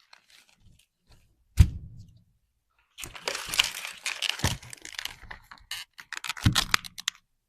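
Handling noises: a few light clicks, a sharp knock with a low thud, then a stretch of crinkling and crackling broken by two more knocks, ending abruptly.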